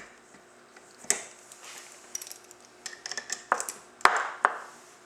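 Metal tools and parts of a snowmobile drive clutch clinking as it is taken apart: a scatter of light clicks, then three louder ringing clanks in the second half.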